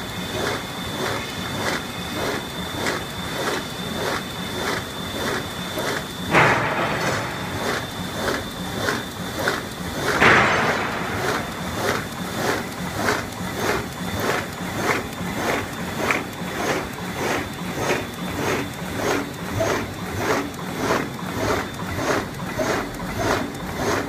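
GUR-iS PSR-900 bag-making machine running, making polyethylene bags on a roll. Its sealing and perforating head clacks in an even rhythm of about three strokes every two seconds. A thin high whine stops about six seconds in, and two louder rushing noises come about six and ten seconds in.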